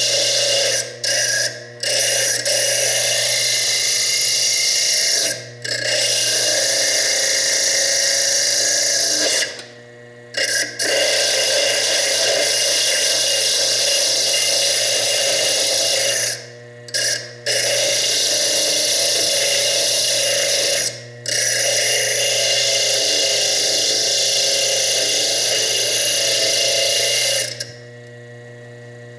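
Small slitting disc on a bench lathe grinding into fire agate, a loud high-pitched cutting noise over the steady hum of the lathe motor. The disc is lifted off the stone several times, leaving only the motor running, and the cutting stops near the end.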